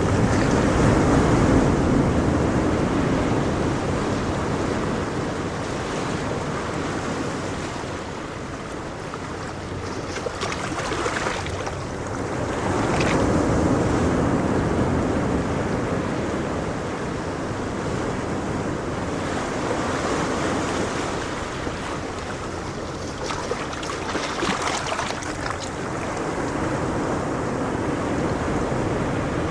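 Ocean surf: a continuous wash of waves that swells and ebbs several times as sets break.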